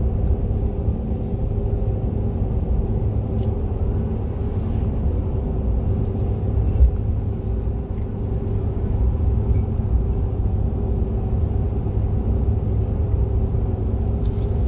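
Steady road noise inside a car's cabin as it drives along a paved highway: a constant low rumble of tyres and engine with a faint even hum.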